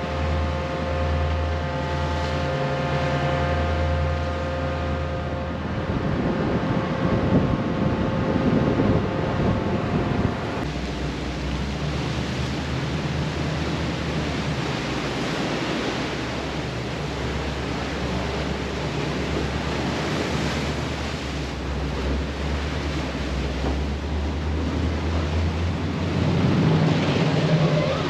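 Pilot boat's engines running with a steady low drone over rushing, splashing water from its wake. A steady higher whine rides on top and stops about ten seconds in.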